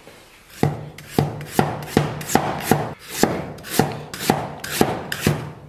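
Cleaver slicing fresh ginger on a thick round wooden chopping board: about a dozen even chops, two to three a second.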